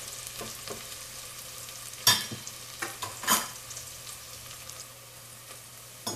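Chopped onions sizzling softly in olive oil in a stainless steel pot, the onions frying until soft. A few sharp metal scrapes and clinks from the slotted spatula against the pot about two and three seconds in, then only the sizzle.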